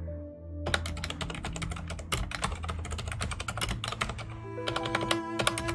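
Fast typing on a computer keyboard, a dense run of key clicks starting about a second in, over background music.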